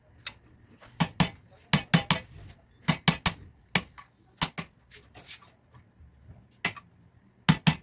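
Sharp hard knocks and clinks of tools against metal, about a dozen in irregular pairs and threes.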